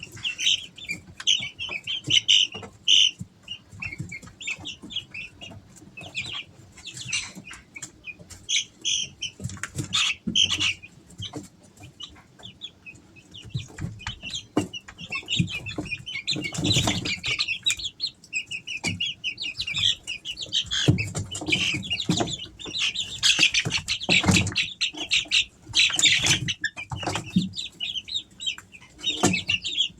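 Three-week-old Easter Egger chicks peeping continuously in rapid, overlapping high chirps. Short rustles and knocks come in between, more often in the second half.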